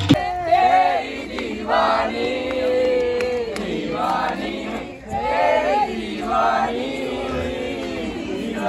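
A group of people singing a song together without instruments, in a round of antakshari.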